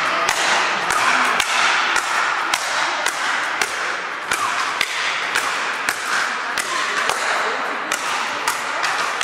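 Speed-ball rally: paddle rackets striking the tethered ball back and forth, sharp cracks coming about two to three times a second over steady background noise.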